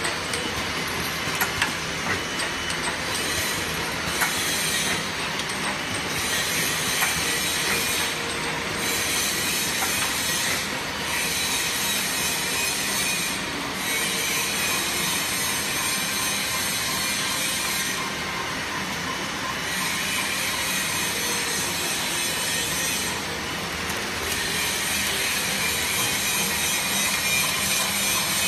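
Automatic bottle conveyor and labelling machines running: the slat-chain conveyor carrying small glass dropper bottles makes a steady mechanical clatter, with scattered sharp clicks in the first few seconds.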